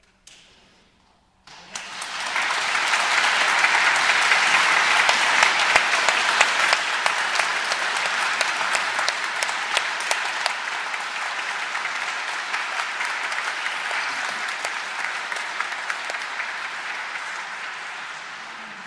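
Congregation applauding: the clapping starts about a second and a half in, swells quickly to a full sustained applause, and slowly tapers off near the end.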